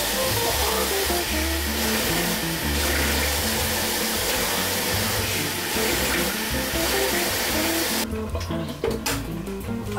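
Guitar music over a steady rush of running water from a kitchen tap. The rushing stops about eight seconds in and the music goes on.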